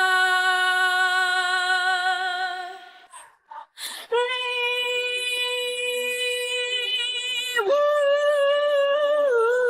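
A young woman singing long held notes with vibrato into a microphone. She breaks off about three seconds in and comes back about a second later on a new long note.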